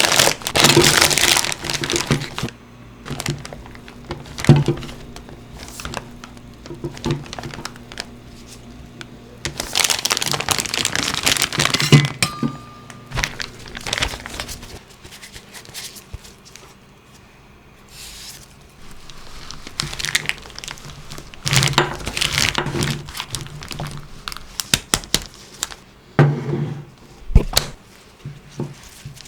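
Kitchen prep sounds: bouts of crinkling and rustling of plastic or paper, mixed with scattered taps and knocks, in a few separate stretches with quieter handling between.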